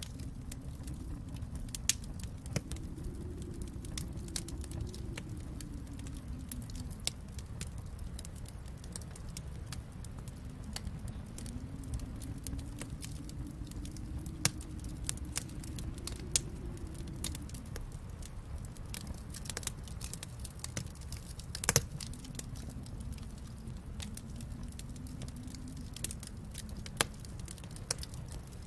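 Wood fire in a fireplace crackling, with irregular sharp pops, the loudest about twenty seconds in, over a steady low rumble that slowly swells and eases.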